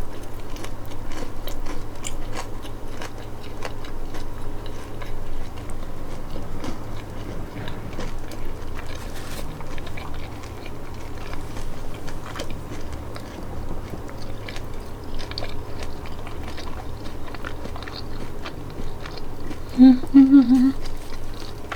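A person chewing and biting corn dogs and French fries close to the microphone, with many small crunches and mouth clicks. A brief hummed voice sound comes near the end.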